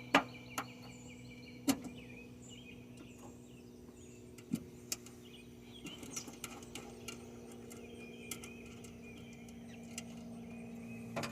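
A few sharp metallic clicks and taps of hand tools and fittings being worked on a truck's starter solenoid, mostly in the first half, over a steady low hum. Faint bird chirps are in the background.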